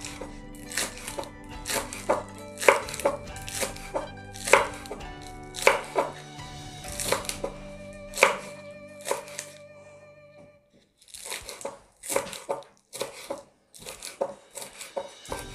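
Kitchen knife slicing spring onions on a wooden cutting board: irregular sharp knocks of the blade against the board, about one or two a second. Background music plays under it and stops about two thirds of the way through, leaving the knife strikes alone.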